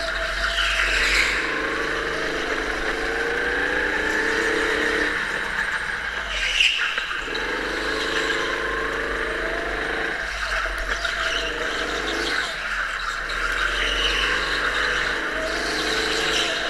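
Go-kart heard from on board, its motor rising in pitch on the straights and dropping back for the corners several times over, with short tyre squeals in the turns.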